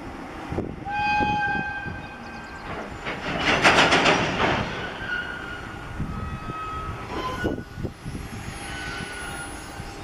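Container freight train hauled by an EF210 electric locomotive rolling across a river bridge: a steady rumble and rattle of the wagons, loudest around three to four seconds in. Short high tones sound over it about a second in and several times in the second half.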